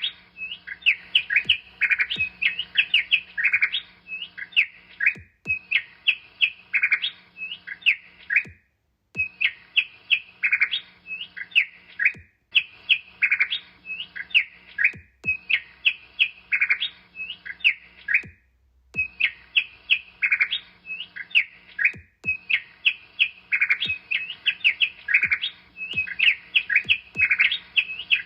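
Small bird chirping: quick, high notes in rapid runs, broken by brief silences every few seconds.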